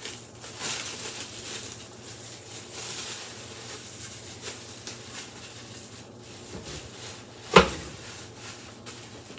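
Plastic wrap crinkling and rustling as it is peeled off a raw chuck roast. About three quarters of the way through comes a single loud thump as the roast drops into the slow cooker's ceramic crock.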